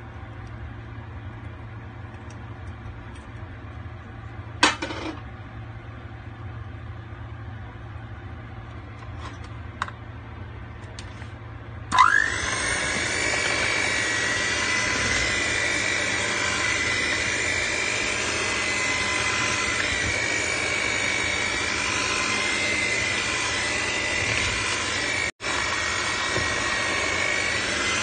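An electric hand mixer switches on a little under halfway in with a rising whine, then runs steadily as its beaters mix banana cake batter in a bowl. Before it starts there are only faint clicks and a single sharp knock.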